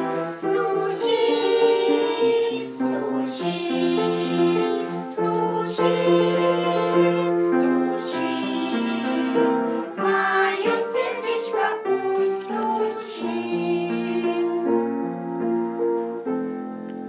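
Children's choir singing a song with piano or keyboard accompaniment and a light regular beat, the music fading out near the end.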